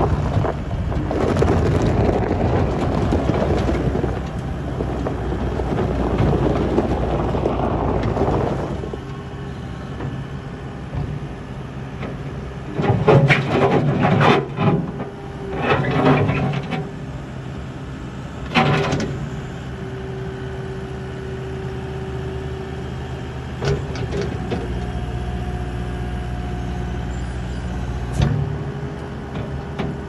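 New Holland L230 skid steer loader's diesel engine running as the machine drives over gravel, loud and busy for the first nine seconds or so. A few short, sharper bursts come around the middle, then it settles to a steady, quieter run.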